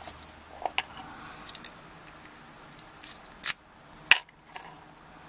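A series of small, sharp metal clicks and clinks from padlock parts and tools being handled on a workbench. The loudest click comes a little after four seconds in.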